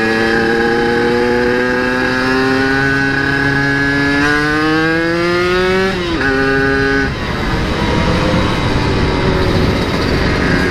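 Yamaha RX-King 135cc two-stroke single on its exhaust, pulling under throttle with the pitch rising steadily for about six seconds. The note briefly dips and then holds. About seven seconds in it gives way to a rough, noisy sound with no clear note.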